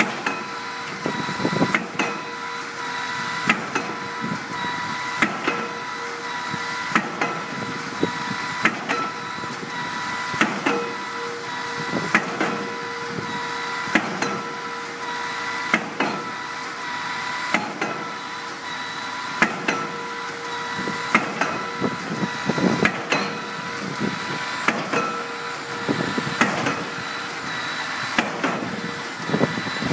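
Pile-driving hammer striking a pile at a regular beat, about one blow every 1.7 seconds, over a continuous steady whine of machinery.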